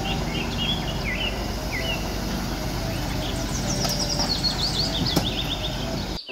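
Diesel engine of a Hyundai wheeled excavator running steadily while it loads dirt, with birds chirping over it and a quick run of chirps in the second half.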